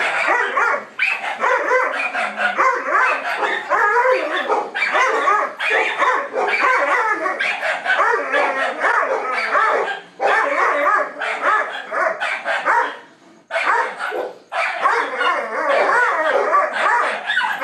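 Dog fight between a Doberman and a small muzzled terrier: barking and yipping almost without pause, broken by a couple of short gaps about two-thirds of the way through.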